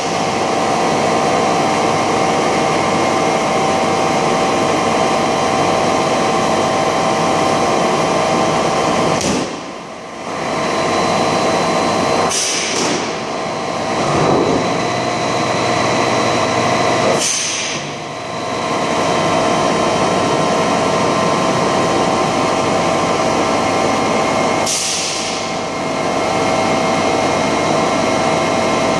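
A large extrusion blow moulding machine running with a steady mechanical hum that carries several fixed whining tones. Four short, sharp bursts break through it during the cycle, the first a third of the way in and the last near the end. The loudness drops briefly after the first and third bursts.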